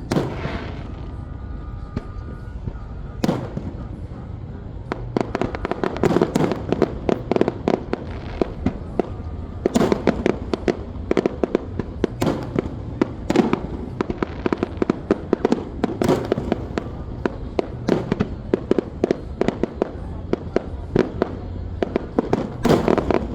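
Fireworks going off: a dense, rapid crackle of many small pops, with louder bangs every few seconds over a steady low rumble.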